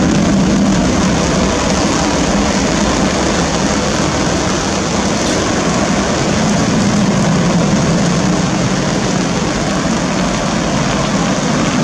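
Airbus A321-200 jet engines running at high power as the airliner speeds along a wet runway, kicking up spray: a loud, steady rush of noise that swells and eases slightly.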